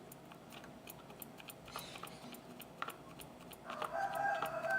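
Faint small clicks, then about three and a half seconds in a long call at one steady pitch begins and carries on past the end, rising above everything else.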